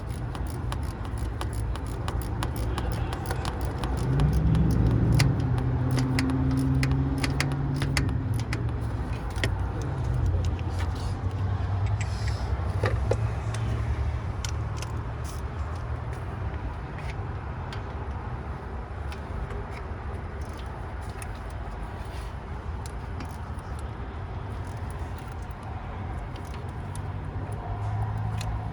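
Hand ratchet clicking and metal tools clinking in irregular bursts while the starter's mounting bolts are tightened, over a steady low rumble that swells for a few seconds early on.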